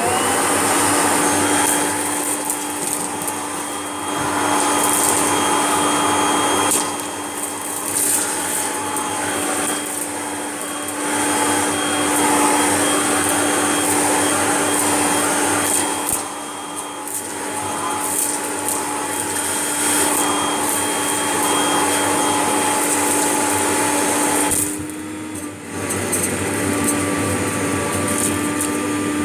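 Kirby G6 vacuum cleaner running steadily with a constant motor hum, with crackling as mess and debris are sucked up. The sound dips briefly near the end before carrying on.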